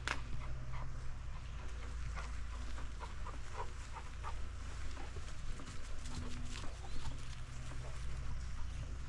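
Bicycle ride on a dirt farm trail with dogs running alongside: a steady low rumble with a scatter of short, irregular clicks and crunches, and one sharp click right at the start.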